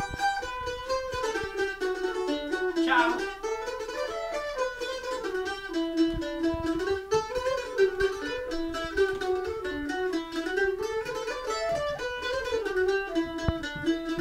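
Live music on a plucked string instrument, played with fast repeated picked notes and a sliding melody line running over them.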